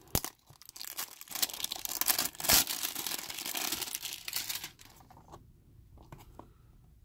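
Clear plastic wrap being torn and pulled off a cardboard blind box, crinkling and crackling for nearly five seconds, loudest about halfway through. After that only faint clicks of fingers handling the cardboard box.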